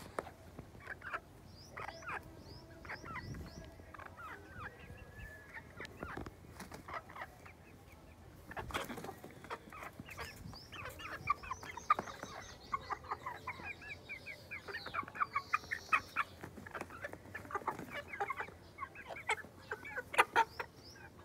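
Aseel chickens clucking in runs of short repeated notes. The notes are sparse at first, come in dense runs in the second half, and are loudest near the end.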